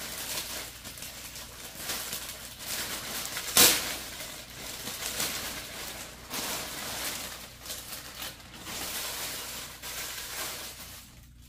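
Clear plastic bag crinkling and rustling as a jersey is pulled out of it, with one loud sharp crackle about three and a half seconds in.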